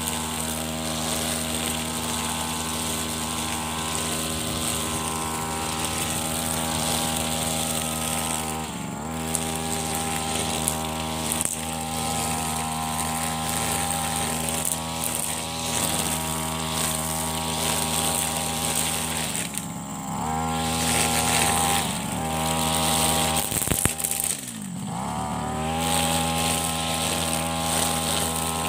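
Brush cutter with a nylon trimmer line running steadily at high speed while cutting short grass. Its engine note sags and climbs back three times as the throttle is eased and opened again, the deepest dip late on.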